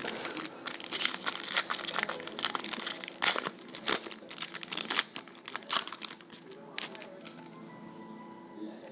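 Sealed trading-card pack wrapper being torn open and crumpled by hand: dense crinkling and tearing that dies down about seven seconds in.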